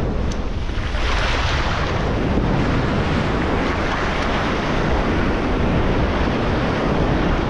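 Ocean surf washing up the beach and foaming over the sand, getting fuller about a second in, with wind rumbling on the microphone.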